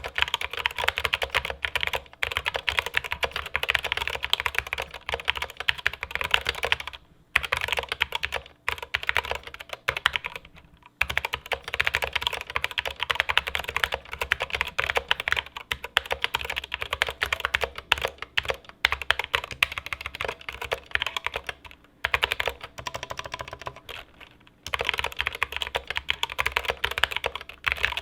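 Epomaker SK61 60% mechanical keyboard with stock Gateron brown optical switches being typed on fast: a dense, continuous clatter of keystrokes, broken by a few short pauses.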